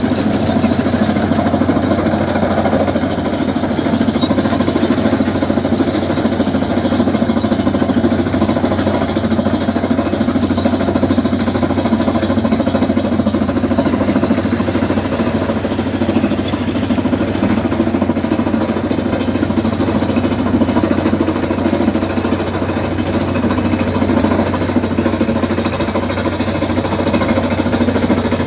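Pneumatic micropile drilling rig boring into dolomite rock: its engine runs steadily under a fast, even hammering from the drill.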